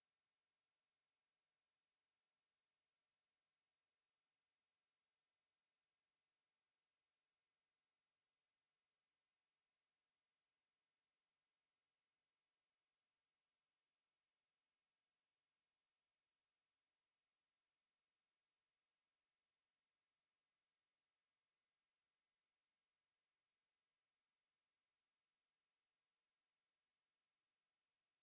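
A pure 11244 Hz sine-wave test tone: one steady, high-pitched whistle that holds the same pitch and level without a break.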